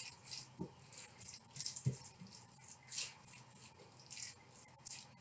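Spoon gently mixing diced raw trout with mayonnaise in a bowl: faint, irregular wet squelching with a few soft knocks.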